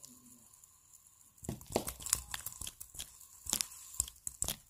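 Fingers flicking and handling a spinning fidget spinner. Quiet at first, then about a second and a half in a quick run of irregular clicks and scratchy rustles begins.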